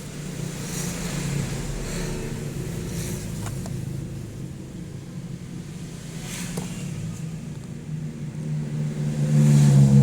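A motor running with a steady low hum, getting louder near the end.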